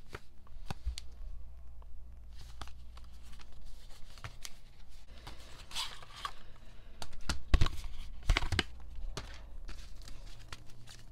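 Album packaging being opened and handled: paper and plastic crinkling and tearing in a series of short rustling bursts and clicks, loudest about two-thirds of the way through.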